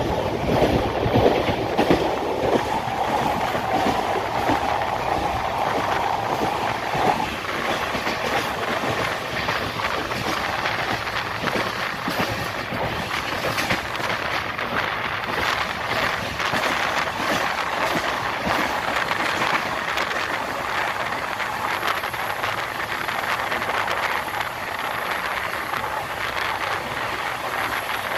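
Express passenger train passing through a station at high speed: a continuous loud rush of coaches with wheels clattering over the rails. A steady tone is held over it for the first seven seconds or so.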